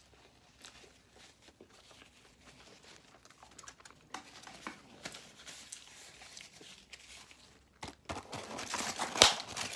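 Soft chewing and small mouth clicks, then a food wrapper rustling and crinkling near the end.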